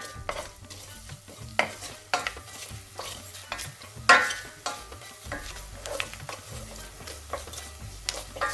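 Cumin and coriander seeds frying in a little oil in a pan, sizzling as a spoon stirs them, with a few sharp clinks of the spoon against the pan, the loudest about four seconds in.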